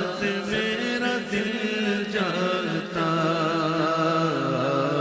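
A man's voice singing an Urdu naat without instruments, drawing out long wavering notes into a microphone.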